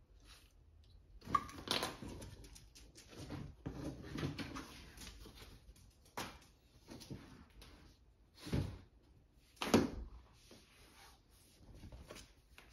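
Cardboard boxes and plastic-wrapped parts being handled while unpacking: irregular rustling and scraping with a few sharper knocks, the loudest about a second and a half in and again near ten seconds in.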